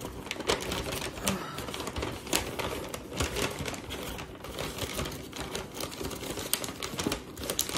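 Paper takeout bag crinkling and rustling as it is opened and rummaged through by hand: a steady run of quick, dry crackles.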